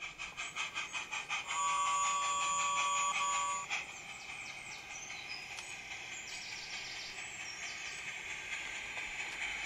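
16mm-scale Barclay tank steam locomotive chuffing at about four beats a second and sounding its whistle for about two seconds, starting about one and a half seconds in. After the whistle the chuffs die down under a steady hiss.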